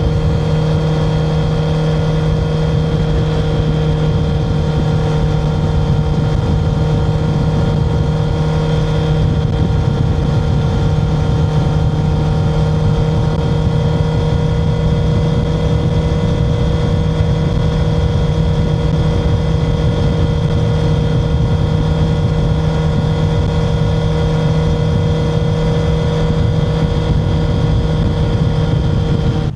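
Honda CBR650R E-Clutch's inline-four engine, breathing through an Akrapovic Racing Line titanium exhaust, running loud at steady revs while riding, its pitch holding constant throughout with a dense rumble underneath.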